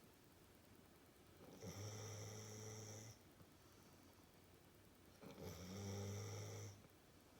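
Staffordshire bull terrier snoring in deep sleep: two snores about three and a half seconds apart, each about a second and a half long, a low steady tone with a high hiss over it.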